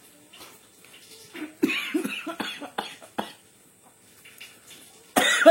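A person coughing in a fit, a quick run of coughs about a second and a half in and another loud cough near the end, set off by the cooking.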